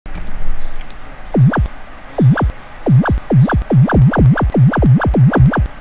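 Synthesized electronic intro music: a series of swooping tones, each dipping low and snapping back up in pitch, two spaced apart at first and then coming quicker, about three a second.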